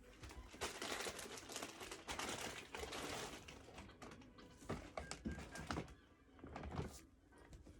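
Snack bags being handled: plastic chip and pretzel bags crinkle, with quick light clicks and taps as packages are moved and set down. It is busiest in the first half and thins to scattered taps after about four seconds.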